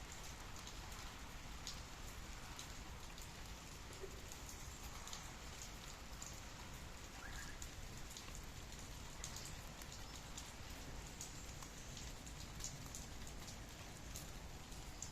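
Steady rainfall with scattered drops ticking on a surface.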